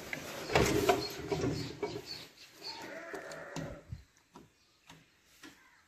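A farm animal bleating, one drawn-out call about two to four seconds in, over handling noise, followed by a few faint clicks near the end.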